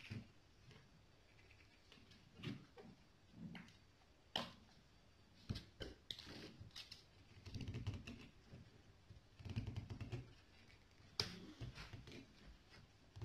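Vanilla ice cream being scooped from a plastic tub into a plastic blender jug: scattered faint clicks and knocks of the utensil against plastic, with a couple of dull thuds around the middle.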